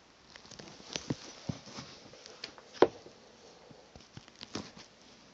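Handling noise: a string of irregular light taps and clicks, with one sharper knock about three seconds in.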